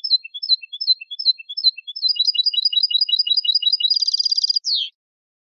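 A songbird sings one structured song phrase. It starts with slow, evenly repeated chirps, speeds up into a faster run of notes about two seconds in, and breaks into a rapid buzzing trill. It ends on one falling note and then stops.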